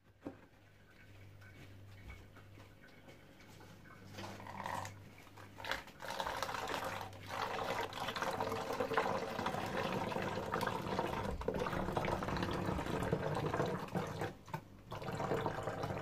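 Liquid poured from a bowl into a plastic bottle, filling it. The pour starts about four seconds in, runs on steadily with a few short breaks, and stops shortly before the end.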